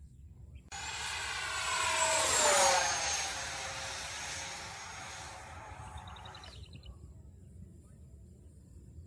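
Freewing 90mm F-22 RC jet's electric ducted fan making a fast pass overhead: a rushing jet-like whoosh with a high fan whine. It starts abruptly under a second in, is loudest a couple of seconds later, and drops in pitch as the jet passes before fading away.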